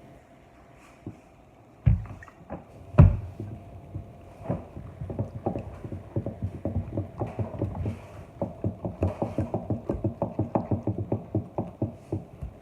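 A spoon stirring sticky homemade slime in a bowl: rapid repeated strokes, about three or four a second, after two louder thumps near the start. The slime is being activated and is thickening but still sticky.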